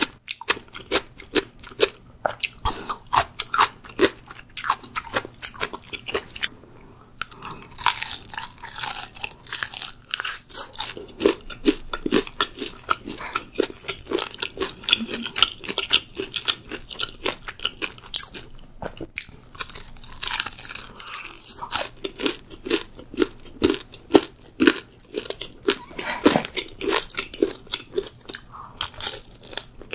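Close-miked crunching bites and chewing of crispy fried chicken and fried cheese balls, in a dense, irregular run of crackly crunches.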